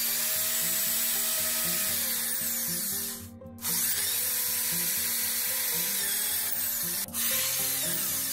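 Electric drill spinning a homemade sandpaper drum against a wooden block, the sandpaper rasping on the wood over the drill motor's whine. It stops a little over three seconds in and again briefly just after seven seconds, starting up again each time.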